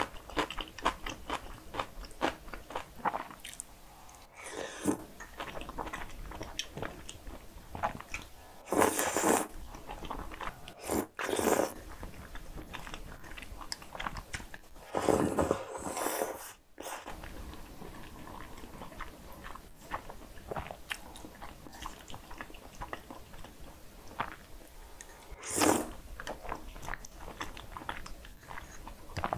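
Close-miked eating: chewing a mouthful of cream pasta noodles with many small wet clicks, broken by a few louder slurps of the noodles.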